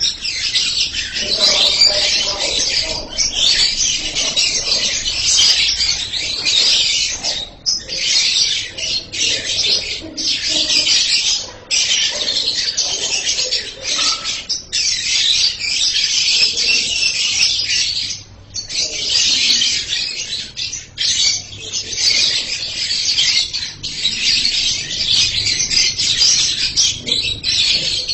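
Lovebird singing a long, rapid, shrill chatter, broken only by short pauses every three or four seconds.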